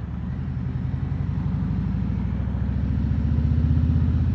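Harley-Davidson Road King Special's V-twin engine running under way, a low pulsing exhaust note that grows louder over the first three seconds or so.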